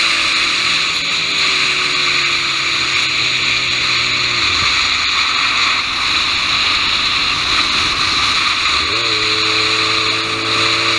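Kawasaki Ninja 1000's inline-four engine running at highway speed under heavy wind roar on the microphone. Its note sags slowly, drops out about four seconds in, and comes back with a quick rise about nine seconds in.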